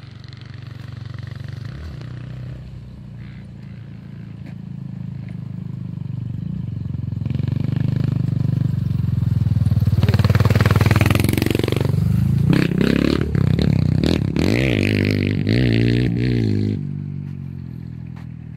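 A motor vehicle's engine grows louder over several seconds. Its pitch rises and falls as it revs, and it drops away suddenly near the end.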